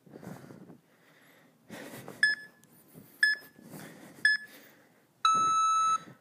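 Workout interval timer counting down the end of an interval: three short beeps a second apart, then one long, lower beep marking the switch to the next exercise.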